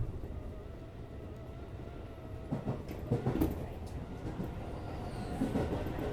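A JR West 205 series electric commuter train running between stations, heard from inside the car: a steady rumble with a faint steady whine. A few sharp knocks and clatters come about halfway through.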